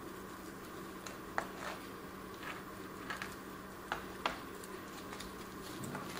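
A few light, irregular clicks and taps as onion pieces and knives are handled on plastic cutting boards, over a faint steady hum.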